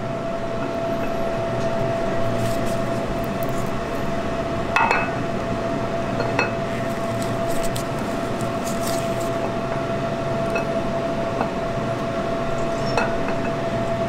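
A few light metallic clinks as a camshaft is eased by hand into the cam bearings of a 4.8 L LS V8 block, its lobes and journals touching the bearings. Underneath is a steady hum with one constant tone.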